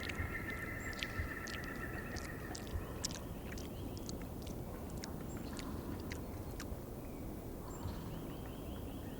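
A woodpecker's bill tapping at food: irregular sharp taps, about one or two a second, over steady outdoor background noise. A steady high tone sounds through the first three seconds.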